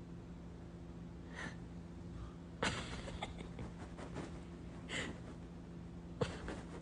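Elderly woman snoring in her sleep: a few rough, noisy breaths, the longest and loudest about two and a half seconds in, over a steady low hum.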